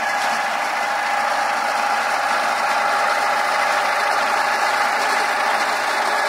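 Vintage tractor engine running steadily as it pulls a reaper-binder cutting standing wheat, the binder's mechanism working along with it; an even sound with a constant high note running through it.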